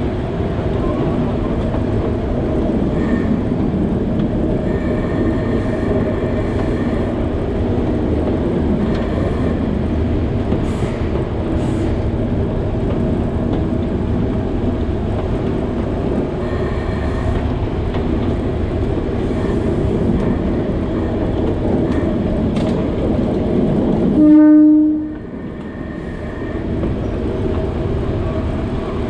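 Alishan Forest Railway narrow-gauge train running along the track with steady rail and running noise. Near the end the train's horn sounds once, a single-note blast about a second long and the loudest sound.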